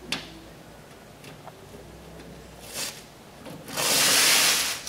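Protective plastic film being peeled off an Adjust-A-Wings reflector wing: a sharp click just after the start, a brief rustle about three seconds in, then a loud, hissing peel lasting about a second near the end.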